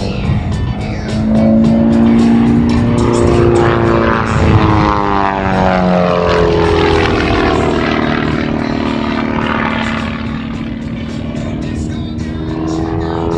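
Pitts S1S aerobatic biplane's piston engine and propeller running hard in flight. Its pitch holds steady at first, sweeps down over the middle and climbs again near the end as the plane manoeuvres and passes.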